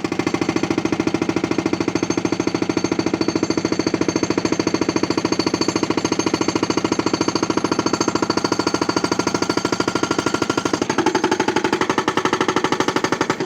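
Excavator-mounted hydraulic breaker hammering in a fast, even rhythm of about ten blows a second, cutting off suddenly at the end.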